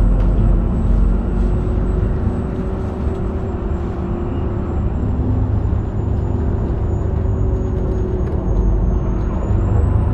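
Heuliez GX327 city bus's diesel engine and ZF 5HP 504C automatic gearbox running steadily under way, a continuous low rumble. A faint high whine sinks slightly and then starts to rise near the end.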